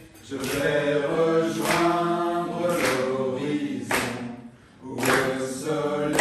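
A small group of four voices, men and a woman, singing a French song together a cappella, with a brief pause for breath about four and a half seconds in.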